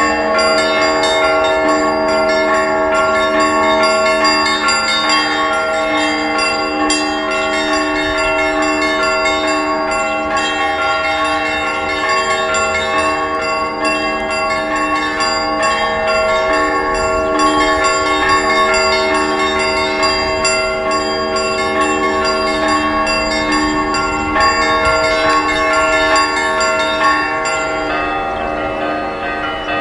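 Several church bells ringing together, their strokes overlapping into one continuous ringing of long, sustained tones at different pitches.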